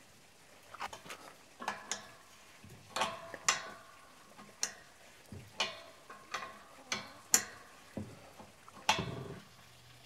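Metal clinks and clicks of a wrench working the bolt on a steel gate's hinge bracket: about a dozen sharp strikes at uneven intervals, with a heavier clank about nine seconds in.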